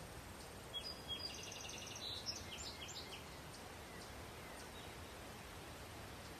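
Faint steady background hiss, with a brief, high, rapidly repeated chirping trill a second or so in that lasts about two seconds.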